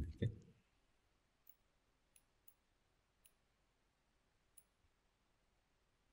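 Faint computer mouse clicks, about five of them spread over several seconds, as keyframes are selected and dragged; a short low thump comes right at the start.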